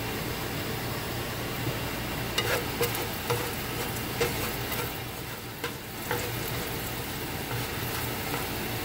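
Sliced garlic sizzling in oil in a nonstick frying pan. A wooden spatula stirs it, scraping and tapping against the pan several times in the middle of the stretch.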